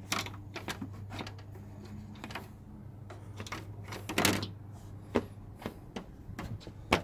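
Plastic radiator cover of a 2012 Dodge Ram being set back in place and pressed down by hand: scattered clicks and knocks, the loudest clatter about four seconds in, over a low steady hum.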